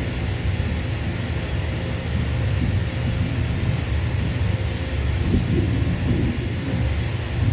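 Twin-engine jet airliner's engines rumbling steadily as it taxis along the runway, a low rumble with a faint hiss above it, mixed with wind on the microphone.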